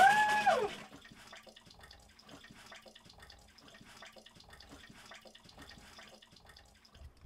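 Water draining out of the bus's PEX water line through an opened fitting as the line is emptied: a loud rush for under a second, then a faint trickle.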